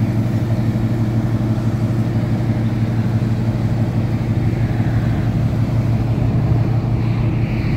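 A car engine running at a steady idle, with an even low hum and no change in speed.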